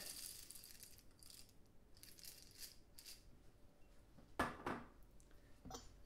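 Coffee beans rattling faintly as they are poured into a Porlex mini hand grinder, followed by a single sharp knock about four and a half seconds in.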